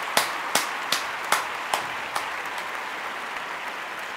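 Crowd applause following a stage introduction: a few sharp, loud claps stand out over the first two seconds or so, then it settles into a steady wash of clapping.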